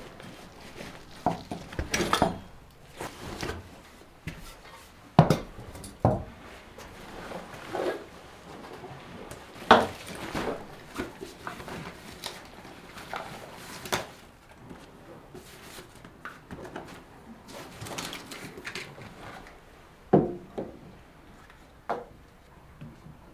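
Irregular knocks, clinks and clatters of objects being handled and set down, with a few louder thumps.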